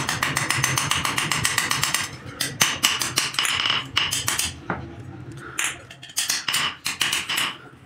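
Small hand hammer striking a thin steel spoon blank on a metal anvil block: a quick run of light strikes for about two seconds, then slower strikes in short runs, each with a bright metallic ring.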